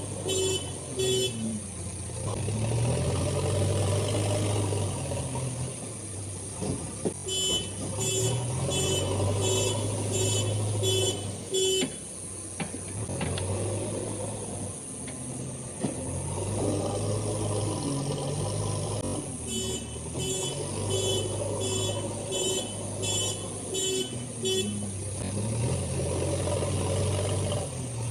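JCB 3DX backhoe loader's diesel engine running under load, its revs rising and falling as it works. A reversing alarm beeps about twice a second in two spells, about a quarter of the way in and again past two-thirds.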